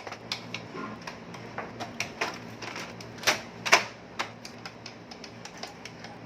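Irregular plastic clicks and knocks from handling an HP Smart Tank 615 printer's parts during reassembly, with two louder knocks a little past the middle.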